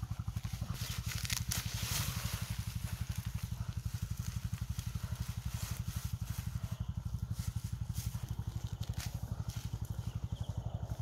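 A steady low chugging, like a small engine running, with several quick pulses a second. Over it, leafy plants crackle and rustle as they are pulled and handled.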